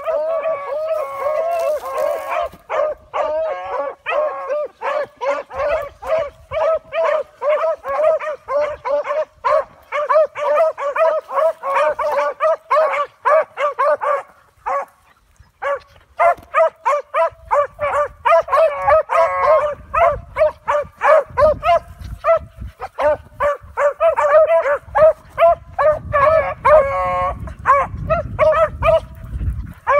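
Several beagles giving tongue on a scent trail: fast, overlapping barks and bawls in a near-continuous chorus. The chorus breaks off for about a second around the middle, then picks up again.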